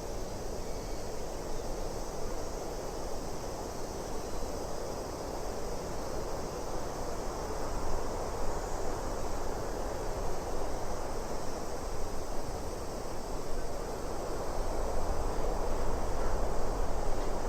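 Steady wind ambience, an even rushing noise with a low rumble, swelling slightly louder near the end.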